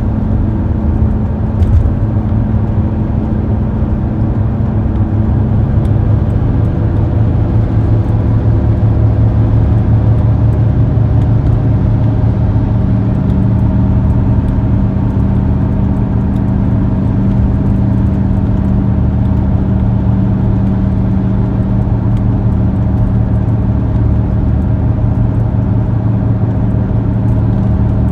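A car driving: a steady engine and road drone, its pitch shifting slightly about twelve seconds in.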